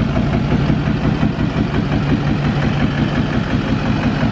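Duramax diesel pickup engine idling steadily with a fast, even low pulse. It sounds good at idle, which the owner credits to a Lucas fuel system cleaner treatment for suspected bad injectors.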